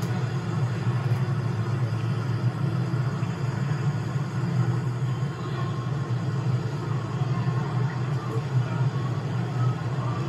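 Steady low rumble of city street ambience, with no single event standing out.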